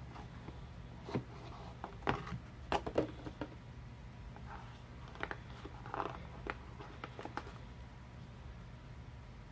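A smartphone being handled and pried out of its box's packaging tray: a string of small clicks, taps and scuffs, loudest about two to three seconds in. A low steady hum runs underneath.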